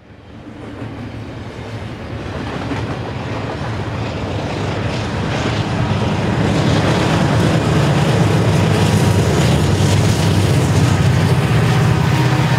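BNSF diesel freight locomotives passing under power, a deep engine drone that fades in and builds over the first six seconds or so, then holds steady. The train's wheels click over the rails underneath.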